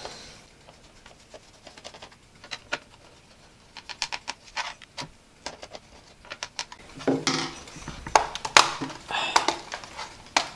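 Small Phillips screwdriver ticking and clicking as the screws of an HP G62 laptop's plastic hard drive cover are undone, followed from about seven seconds in by a louder cluster of plastic clicks and scraping as the cover is worked loose.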